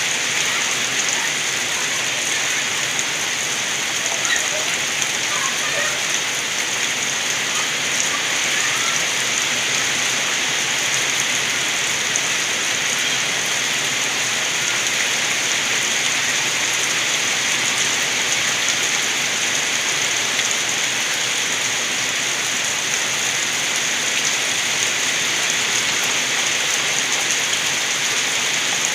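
Steady heavy rain falling outside a window, with rainwater gurgling as it runs off. A few faint chirps stand out briefly about four to nine seconds in.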